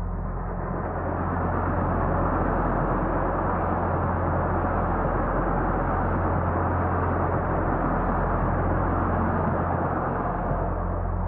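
Passenger train going by at speed: a steady rushing noise that swells up over the first couple of seconds, holds, and eases off near the end, over a low steady hum.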